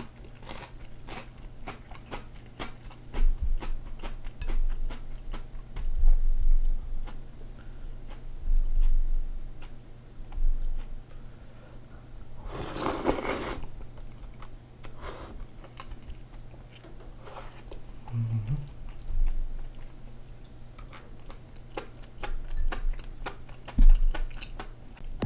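Close-up chewing and wet mouth sounds of a person eating thick perilla-seed kalguksu noodles, with a loud slurp of noodles about halfway through and a couple of shorter slurps a few seconds later.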